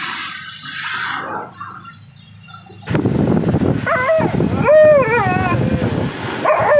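Alaskan Malamute puppy howling, a run of wavering, rising-and-falling howls from about four seconds in and another starting near the end, over the loud steady rush of a pet grooming blow dryer that starts suddenly about three seconds in.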